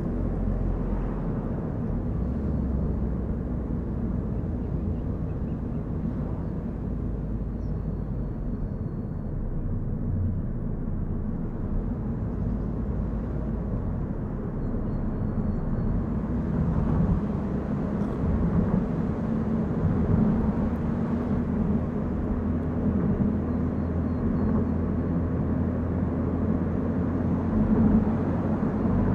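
A car driving on a mountain road: a steady low rumble of engine and tyre noise that rises a little in the second half.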